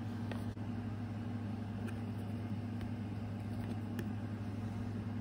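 A steady low background hum, like an appliance or electrical hum, with a few faint light clicks.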